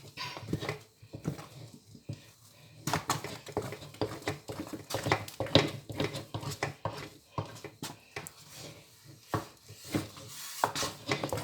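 A spoon stirring thick maize meal porridge (pap) in a cooking pot, giving irregular knocks and scrapes against the pot as the stiff porridge is worked.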